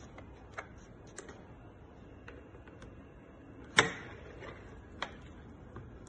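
A few sharp clicks and clacks from a manual recliner's side pull handle and reclining mechanism, with the loudest clack about four seconds in.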